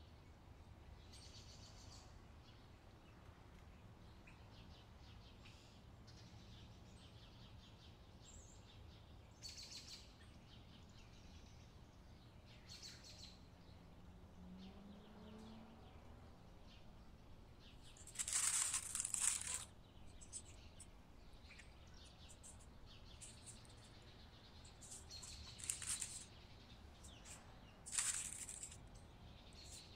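Plastic bag rustling and crinkling in short, scattered bursts, the longest about two-thirds of the way in and more just before the end, over a faint low hum.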